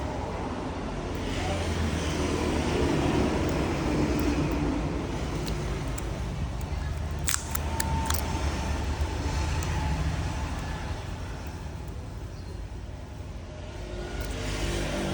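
Low rumble of road traffic, swelling as vehicles pass, with a few sharp clicks about seven and eight seconds in.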